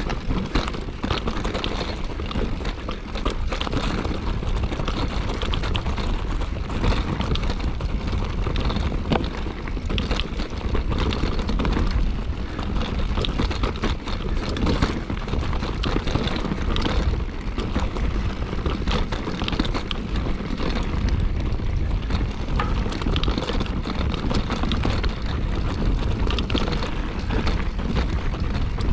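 Wind buffeting the camera microphone while a mountain bike is ridden over a rough trail, with constant rattling and knocking from the bike and tyres on rocks and roots.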